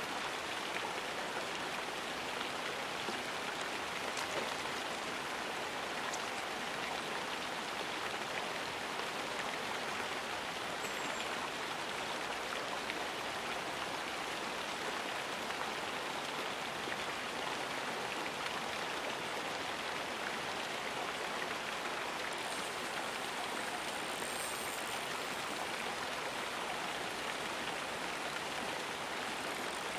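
Steady rushing of running water, an even hiss with no pauses.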